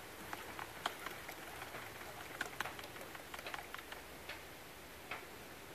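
A scatter of small, sharp, irregular clicks and ticks over a faint steady hiss; they come thickest in the first four seconds and then thin out.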